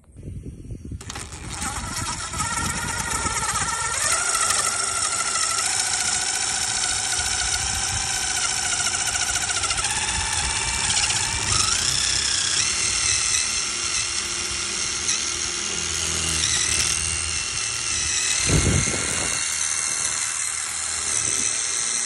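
Cordless drill running a step drill bit up into a truck mirror base: a steady motor whine with the grind of the bit cutting, starting about a second in and shifting in pitch a few times as the bit bites.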